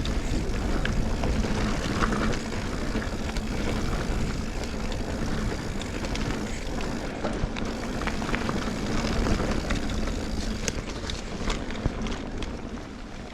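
Mountain bike riding down a woodland singletrack: a steady rush of wind and tyre noise, with scattered clicks and rattles from the bike over the trail.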